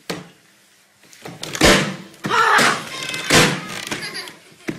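A second of near quiet, then two loud thuds, the first about a second and a half in and the second near three and a half seconds, with a voice crying out around them.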